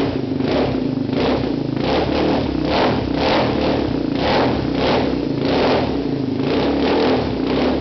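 Yamaha Raptor 350 ATV's single-cylinder four-stroke engine, freshly rebuilt, revved through an FMF Factory 4 exhaust. The throttle is blipped in quick repeated revs, about two a second, over a running engine.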